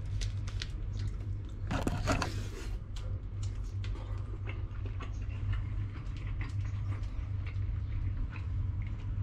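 A person biting into and chewing food off a skewer: many small clicks and mouth sounds, with a longer crackly stretch about two seconds in, over a steady low hum.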